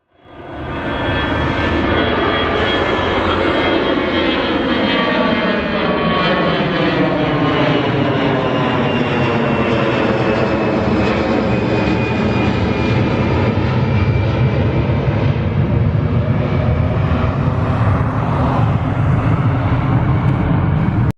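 Airbus A320 jet engines running loud and steady, with several whining tones that slowly fall in pitch and a low rumble that grows heavier in the second half. The sound fades in quickly at the start and cuts off abruptly at the end.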